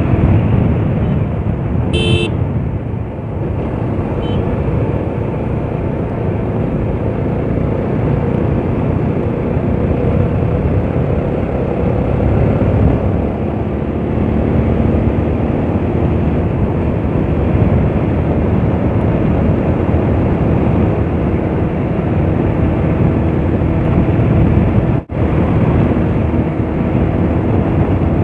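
Bajaj Pulsar RS200's single-cylinder engine running on the move through an open exhaust, its muffler and dB killer removed. A brief horn beep about two seconds in, and the sound cuts out for a moment near the end.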